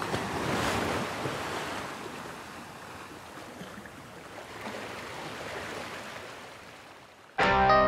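Ocean surf washing in, swelling in the first second and then slowly fading away. Music starts abruptly near the end.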